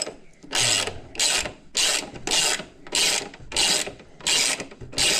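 Hand ratchet wrench worked back and forth, its pawl clicking in a quick burst on each return stroke, about twice a second, as it backs out a fastener that has just broken loose.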